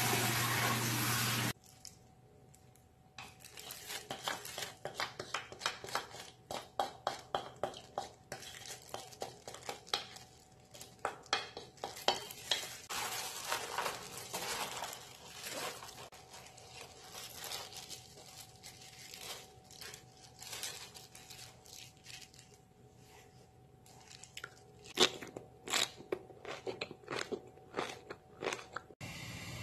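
Tap water running over napa cabbage in a colander for the first second or so. It then gives way to a gloved hand tossing and rubbing salted napa cabbage with red chili paste in a steel pot: a long, irregular run of crisp, wet leaf crackles.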